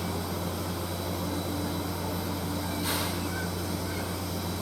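Steam locomotive standing with its machinery running: a steady low hum and a thin high whine over a constant hiss, with a short burst of hiss about three seconds in.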